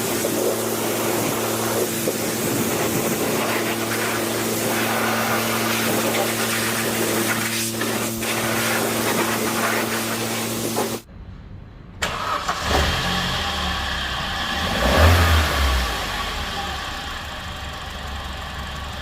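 A pressure washer runs with a steady motor hum and hissing spray. After a sudden break, the Opel Corsa D's 1.2 petrol four-cylinder engine starts, swells loudest for a moment, then settles into idle.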